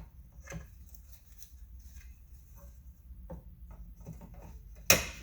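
Plastic side-mirror parts being handled and fitted together: scattered light taps and clicks, then one loud sharp clack near the end.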